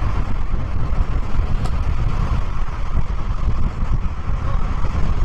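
Steady road and wind noise from a Mazda Roadster convertible driving fast with its top down, a heavy low rumble with no break.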